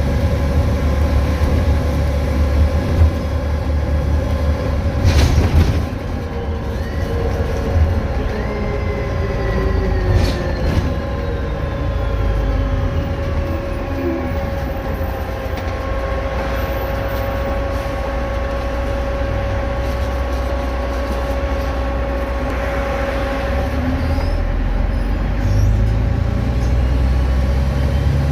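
VDL DB250 double-decker bus under way: a low diesel engine rumble with a steady, hoover-like whine from its electric cooling fan over it. The engine eases off about six seconds in and builds again near the end, while the fan whine holds steady.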